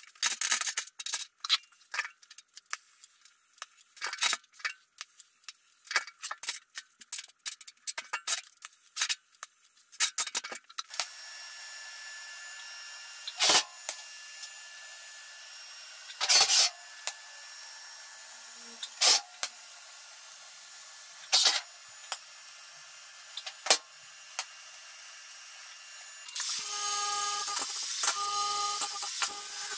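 A string of sharp metal clicks and knocks, then TIG welding on steel tube: a steady hiss broken by a sharp crack every two to three seconds. Near the end a cordless angle grinder starts up and runs with a steady whine.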